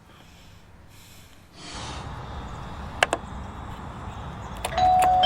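Doorbell chime ringing near the end: two steady tones, the second just after the first, ringing on loudly. Before it, two sharp clicks about three seconds in sit over a steady hiss that starts a little before them.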